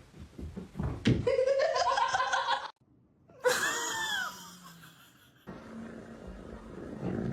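A person laughing hard in quick repeated bursts, cut off suddenly about two and a half seconds in. Then comes a short run of high, sliding vocal sounds, and after that a steady low hum.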